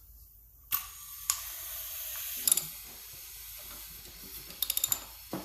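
Compressed air hissing steadily from a shop air line, starting suddenly about a second in, while the connecting rods are gauged. Several sharp metal clicks sound over it, with a quick run of ratchet-like clicks and a knock near the end.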